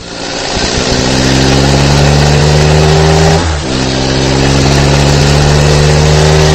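Bus engine running and pulling away, building up over the first second and staying loud and steady, with a short break about halfway through before it picks up again.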